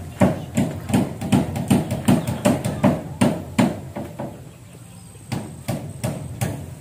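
A digging tool striking hard ground in quick, regular blows, about two and a half a second. The strikes pause briefly about four seconds in, then resume at the same pace.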